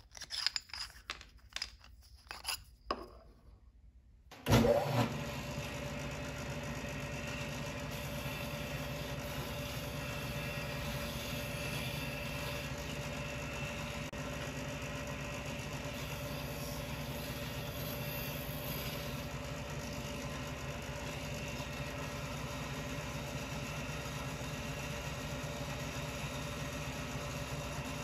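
A few faint clicks and taps as a metal rod pushes the Play-Doh plug out of a glued pen tube. Then a bench disc sander starts and runs with a steady motor hum and sanding hiss while the end of a wooden pen blank is squared against the disc.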